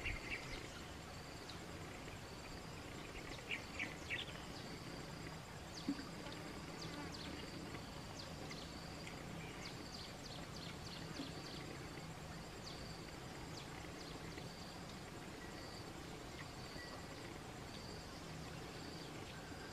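Faint outdoor ambience of insects chirring steadily in a high band, with a run of quick high ticks through the middle and a few soft clicks in the first seconds.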